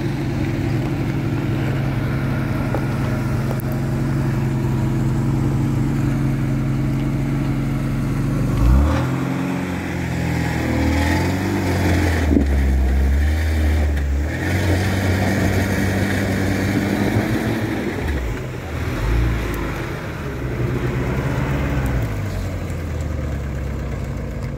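Off-road SUV engines running during a tow-strap recovery: a steady engine note for the first eight seconds or so, then engines revving with the pitch rising and falling as they pull.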